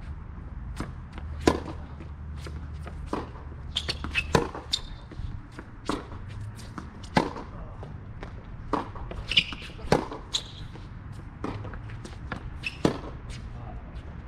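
Tennis rally on a hard court: the near player's racket strings striking the ball with a sharp crack about every three seconds, with softer ball bounces and fainter hits from the far side of the court in between.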